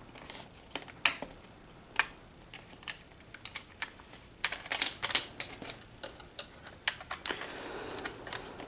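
Small sharp plastic clicks and taps from a laptop's plastic casing being handled and fitted back together, a few single clicks and then a quick cluster of them about halfway through.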